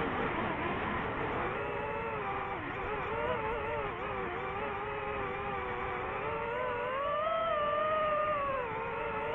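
DJI FPV drone's motors and propellers whining in flight, the pitch wavering up and down with throttle and highest about three-quarters of the way through.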